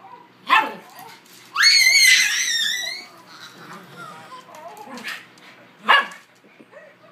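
Small house dogs barking in short single barks, three in all, with a loud, high, wavering squeal lasting about a second and a half, starting about a second and a half in.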